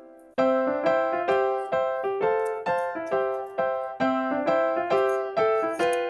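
Background music: a light melody of separate piano-like keyboard notes, about two or three a second, starting again after a short pause about half a second in.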